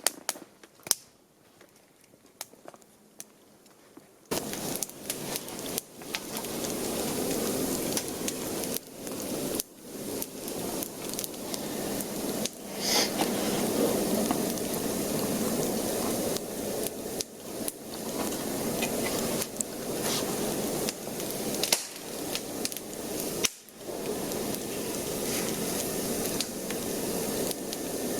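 Food sizzling and crackling over a campfire: a steady hiss full of small pops that starts abruptly about four seconds in, after a few seconds of faint clicks.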